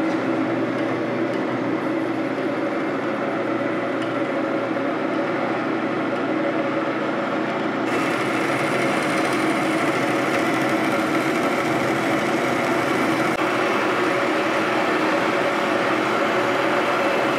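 Roll-in metal-cutting bandsaw running and sawing through a flat metal bar, on its first cut after a rebuild with the wrong blade and drive belt fitted. A higher hiss joins the steady running noise about eight seconds in.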